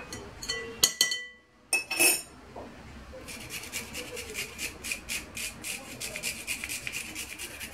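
Garlic cloves grated over a bowl: after a few light knocks, quick, even rasping strokes begin about three seconds in and keep a steady rhythm.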